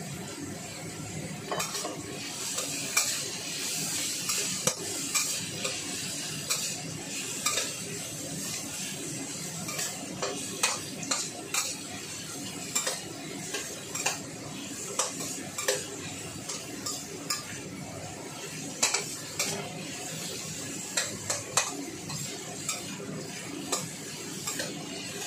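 Metal wok spatula scraping and clinking against a stainless steel wok while stir-frying carrot strips, over a steady sizzle. The sharp clinks come irregularly, often several close together.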